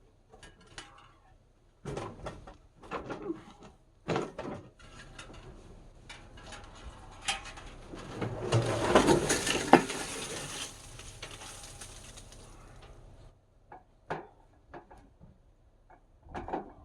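Knocks and clatter of hard, metal-sounding objects being handled, with a louder stretch of scraping and rattling around the middle.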